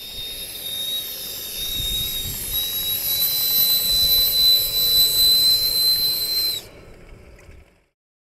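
A miniature steam whistle on a model steamboat blowing one long, shrill blast over hissing steam, its pitch creeping slightly upward. It cuts off sharply about six and a half seconds in, leaving a short fading hiss.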